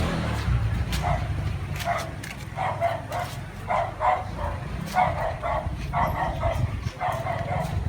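A dog yapping repeatedly in quick short barks, over a steady low rumble.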